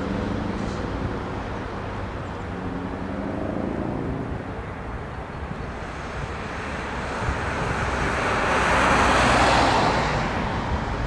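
A car driving past on the road: tyre and engine noise that swells to a peak about nine seconds in, then falls away, over a steady low rumble.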